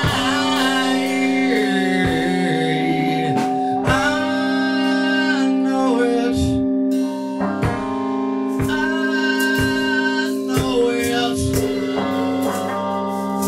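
Music: a song with singing and guitar over long held notes, with a steady beat about once a second.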